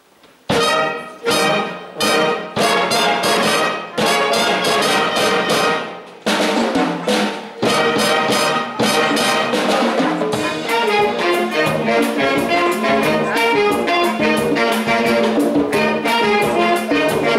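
Youth wind band starting a Cuban-style piece: full brass-led chords come in about half a second in as a string of short accented hits separated by pauses, then about ten seconds in the band settles into continuous playing.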